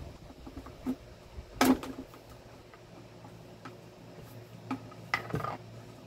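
A handful of sharp plastic clicks and knocks, the loudest about a second and a half in, from the push-button speed switch of a Cadence desk fan being handled. The fan's wind on the microphone stops at the start.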